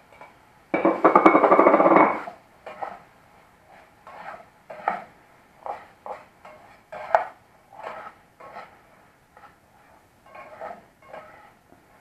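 A metal utensil scraping chopped boiled egg off a china plate into a frying pan: one loud scrape about a second in, lasting about a second. A spoon then stirs the squid and mushrooms in the pan, with irregular short scrapes and clinks against the pan.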